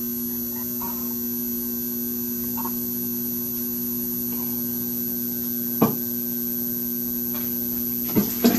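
PWM-driven bifilar rods of an HHO cell screaming: a steady electrical hum made of a few held tones, with a thin high whine above it. A single short tick comes about six seconds in.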